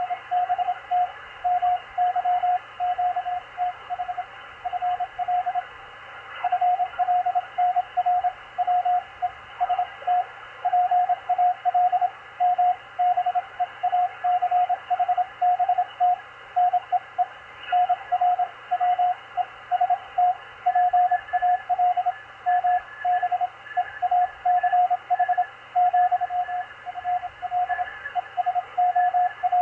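Morse code (CW) on the 20-metre amateur band through a Machilite DSP SDR receiver: a steady tone keyed on and off in dots and dashes over band hiss. A second, fainter and higher-pitched Morse signal joins about two-thirds of the way in.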